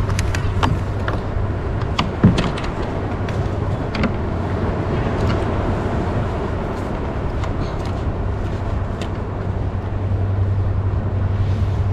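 Steady low rumbling noise of wind and water on a kayak-mounted camera at sea, with several sharp clicks in the first couple of seconds and a single louder knock about two seconds in as a just-caught fish is handled on the line.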